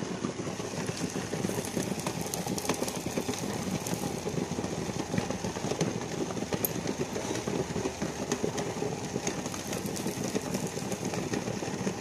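Water boiling hard in an idli steamer pot under cloth-lined idli plates, a steady rough rumble.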